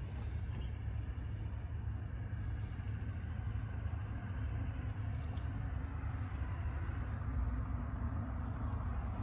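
Steady low rumble of a distant freight train approaching the crossing, mixed with light road traffic.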